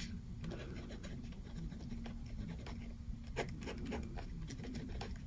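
Gel pen writing on paper: faint scratching strokes.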